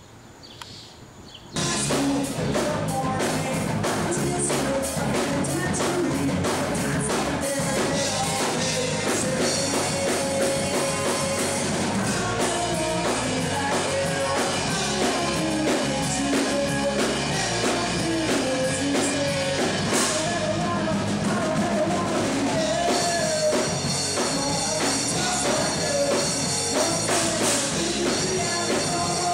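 Live rock band playing with drum kit, guitar and singing, starting suddenly about a second and a half in after faint background sound.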